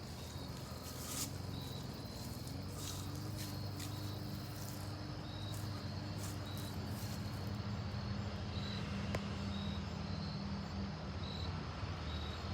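Squirrels fussing at a cat: short high alarm calls repeating at fairly even spacing, with a few sharp clicks in the first half. A low steady hum runs underneath.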